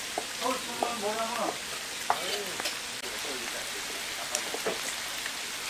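A kitchen knife slicing pork offal on a thick wooden cutting board, the blade knocking on the board a few times. A steady sizzling hiss of frying runs underneath.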